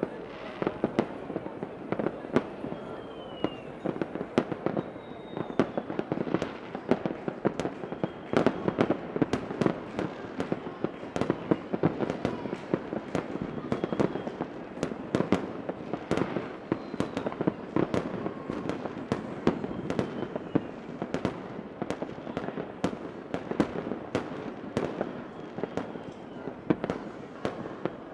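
Fireworks going off in a continuous barrage: dense, rapid pops and crackles with no let-up, and faint whistles from the shells now and then.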